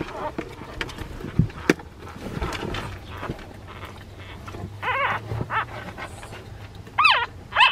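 Newborn Shiba Inu puppies squeaking and whimpering in short, high, wavering cries, the loudest two near the end. A couple of sharp knocks sound about a second and a half in.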